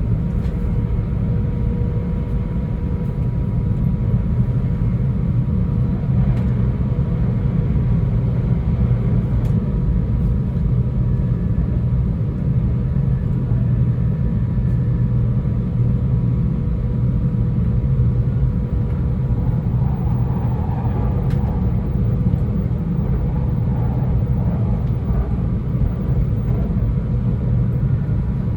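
Cabin running noise of a JR E2 series Shinkansen car under way: a steady low rumble with a faint constant hum.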